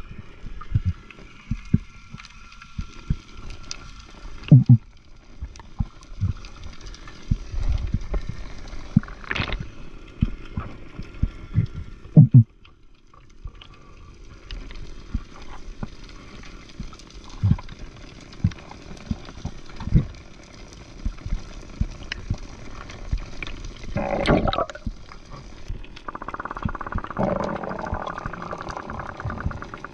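Water sloshing and gurgling around the camera, with many irregular low knocks and thumps. A steady buzz comes in near the end.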